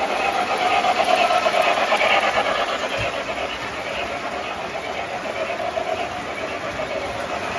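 Wheels of O-gauge model flat cars rolling past on three-rail track: a steady mechanical rolling rumble, a little louder about one to two seconds in.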